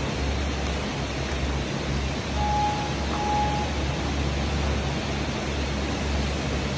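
Two short single-pitch beeps from a gym interval timer as its countdown runs out, a little past two and three seconds in, over a steady rushing noise.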